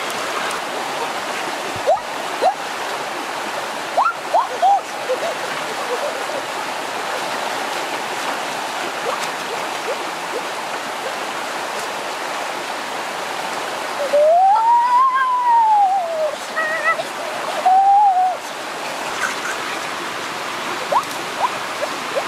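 Shallow rocky stream rushing over rapids, a steady hiss of water. A few short pitched calls sound over it, the longest one about two-thirds of the way through rising then falling in pitch.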